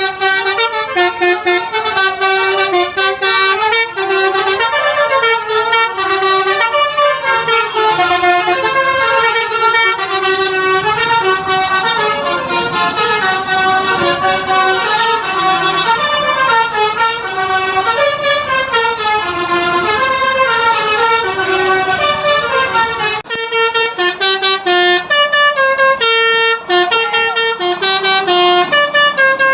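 Telolet basuri bus horns playing tunes: loud, stepped multi-note melodies, several overlapping. The low rumble beneath them drops away about 23 seconds in.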